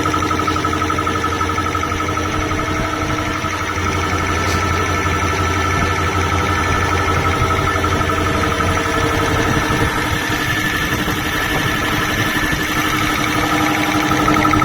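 A 2 hp double-piston air compressor running steadily, its motor and pump making a constant, loud mechanical hum with a steady whine over it.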